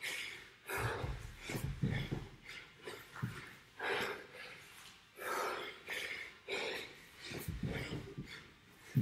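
A man breathing hard from exertion, quick heavy breaths about every half to three-quarters of a second, with a few dull thuds of his body and a kettlebell meeting the floor during kettlebell pulls and burpees.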